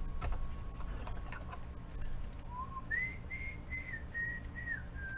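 A person whistling a tune: a low note about two and a half seconds in, then a run of held higher notes. A few faint clicks sound before it.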